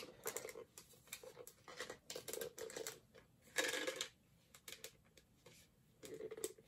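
Hard plastic Mr. Potato Head toy parts being handled and pushed together: a run of small clicks, taps and scrapes as an arm is forced into a hole in the potato body through the armor piece.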